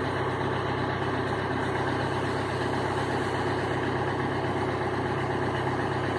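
VW Amarok diesel engine idling steadily at about 900 rpm, heard from inside the cab.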